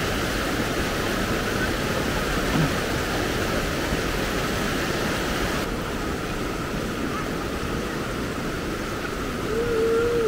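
Swift river water rushing steadily. Its higher hiss drops away suddenly about halfway through, leaving a duller rush.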